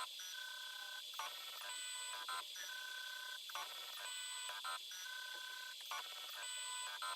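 Stepper motors of a 3D printer converted into a through-hole soldering machine, whining through a series of short moves. Each move is a steady high tone lasting about half a second to a second, with a different pitch from move to move, and a brief click marks each stop and start.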